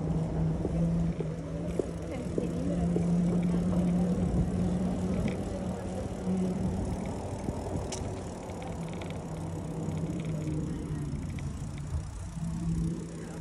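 Bicycle riding along a wet street: continuous tyre and road noise with a steady low hum underneath.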